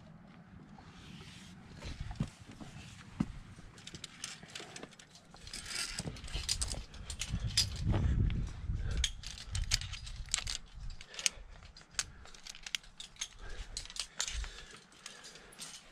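Via ferrata lanyard carabiners and gloved hands clinking and scraping against the steel safety cable and rock as the climber moves up, a string of sharp metallic clicks. A low rumble on the microphone builds in the middle.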